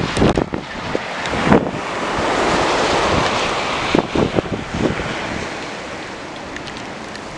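Strong, gusty wind buffeting the microphone: a loud rushing noise that swells for a couple of seconds in the middle and eases off near the end, broken by sharp buffeting thumps.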